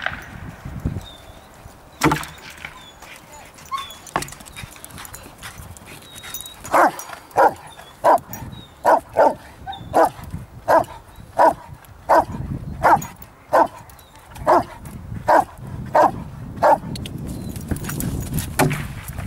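Rottweiler barking at a helper standing in a hide, the hold-and-bark of IPO protection work: about fifteen deep barks in an even rhythm, roughly three every two seconds, starting about seven seconds in and stopping shortly before the end.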